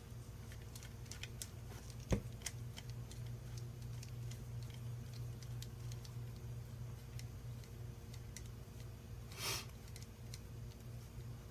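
A small screwdriver turning a screw into a plastic 3D-printer extruder hub, giving faint scattered ticks and clicks of metal on plastic, with a sharper click about two seconds in and a short rustle near the end, over a low steady hum.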